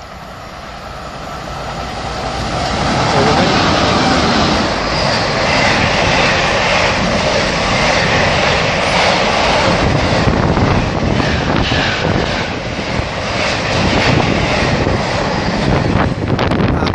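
Class 90 electric locomotive hauling a container freight train through the station at speed: the noise builds over the first three seconds as it approaches, then a steady rush and rumble of passing wagons with rapid wheel clatter.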